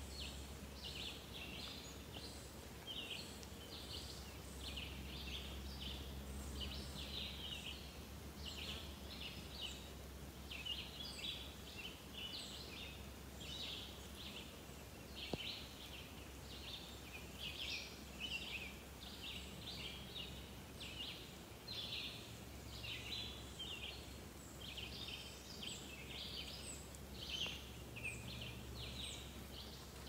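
Birds calling in a leafy forest: many short, high chirps and calls overlapping without a break, over a low steady hum.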